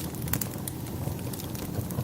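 Wood fire crackling, with scattered sharp pops, one clearer pop about a third of a second in, over a steady low rumble.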